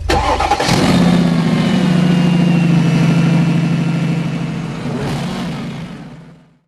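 Vehicle engine held at high revs with a steady pitch, wavering about five seconds in, then fading out.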